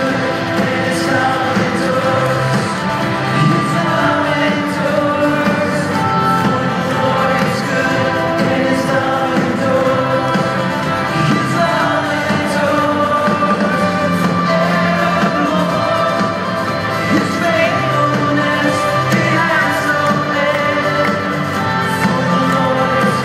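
Live band playing with singing, heard from far back in a large arena.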